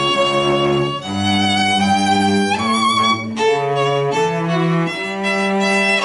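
Small string ensemble playing, a violin bowing over lower parts in long held notes that change about every second.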